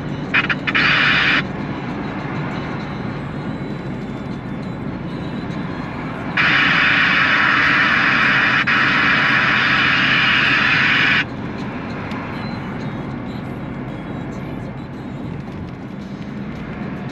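Steady diesel engine and road noise inside a DAF XF truck cab on the move. A loud hiss comes in twice: for about a second shortly after the start, and for about five seconds from about six seconds in, then cuts off suddenly.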